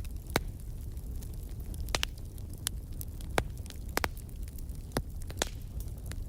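Wood fire crackling in a fireplace: irregular sharp pops, about half a dozen, over a low steady rumble.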